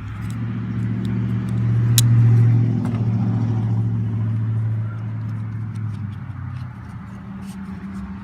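A motor vehicle's engine humming at a steady low pitch, growing louder to a peak about two seconds in and fading away after about five seconds. Small clicks and one sharp click about two seconds in come through over it.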